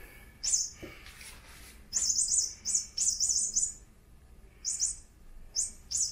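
Battery-powered squeaking toy mouse for cats giving short, high-pitched electronic mouse squeaks as the cat bats it: a single squeak, then two quick runs of three or four, then single squeaks near the end.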